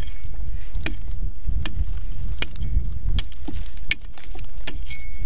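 Prospecting pick striking and digging into stony ground, a sharp chop about every three-quarters of a second, over a steady low rumble of wind on the microphone.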